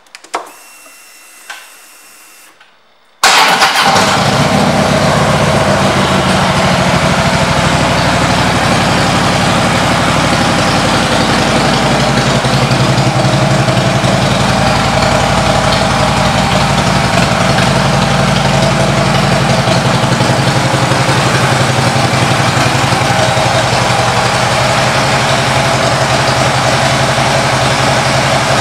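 Harley-Davidson Road King's air-cooled V-twin engine starting abruptly about three seconds in, after a few faint clicks, then idling steadily.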